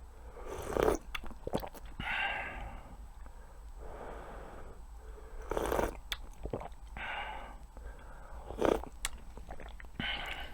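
A person chewing food close to the microphone, mouthfuls of bibimbap and kimchi stew, with louder wet mouth sounds every couple of seconds and a few sharp clicks.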